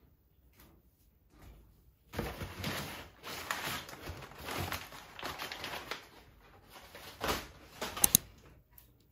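Crumpled brown kraft packing paper rustling and crackling as it is lifted and pulled out of a cardboard box, starting about two seconds in and going on for about five seconds. Two sharp clicks follow near the end.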